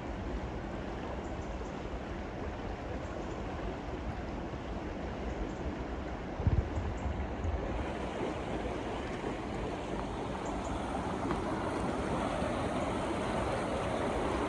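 River water rushing steadily along a brick-walled mill race, getting a little louder near the end. A brief low thump about halfway through.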